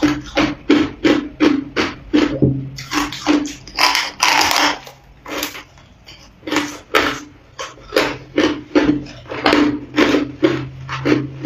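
Teeth biting and chewing a slab of hard frozen ice: rapid, sharp crunching, about three crunches a second. There is a longer crackling crunch about four seconds in and a brief lull a little past the middle.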